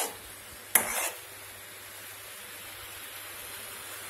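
A steel ladle clinks once against the metal kadai a little under a second in, then syrup boils in the pan with a steady, faint bubbling hiss.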